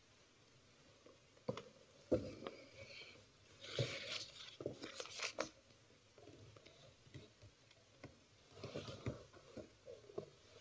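Faint scattered knocks, clicks and rustling of people moving about in a quiet church, with a longer rustle about four seconds in and another near nine seconds.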